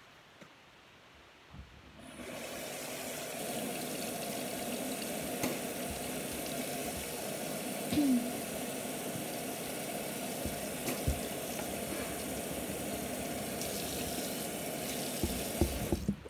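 Bathroom sink tap running steadily into the basin, turned on about two seconds in and off near the end, with a few small knocks and splashes along the way.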